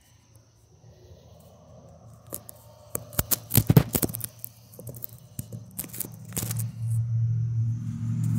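Phone microphone handling noise: a run of sharp knocks, clicks and scrapes as the phone is moved about and covered, over a low steady hum that grows louder near the end.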